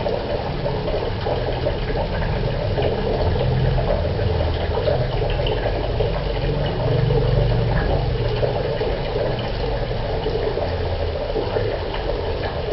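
Water running steadily from a tap into a bucket, filling it.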